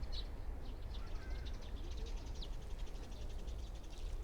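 Wild birds calling in a wetland park: short high chirps near the start and end, and a fast, rapidly repeated trill through the middle. A steady low rumble runs underneath.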